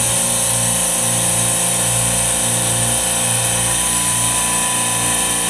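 Semi-hermetic reciprocating refrigeration compressors on a rack running steadily: a constant mechanical hum with a high hiss over it.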